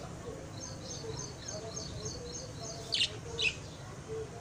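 Small birds chirping: a quick run of high chirps, about five a second, then two louder, sharper calls about three seconds in.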